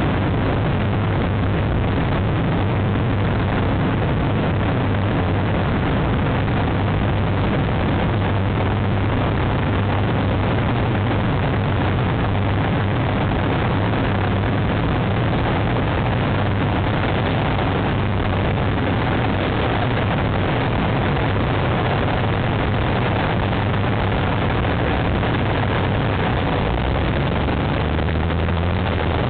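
Steady, loud rushing noise with a low, even hum underneath, unchanging throughout.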